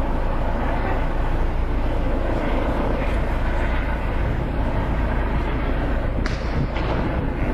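Steady outdoor background noise, a low rumble with a hiss over it, and a faint click about six seconds in.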